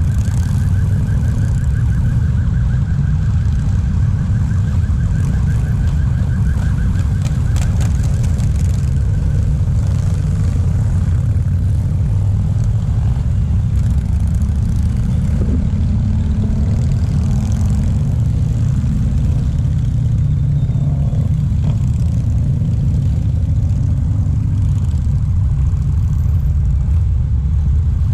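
Steady low rumble of many motorcycle engines as a long column of motorcycles, many of them cruisers, rides slowly past. A wavering high-pitched tone sounds over the first eight seconds or so.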